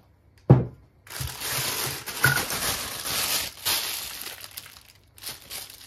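A knock about half a second in, then a disposable plastic piping bag full of cream crinkling and rustling as it is handled and lifted out of a tall plastic cup, for about four seconds.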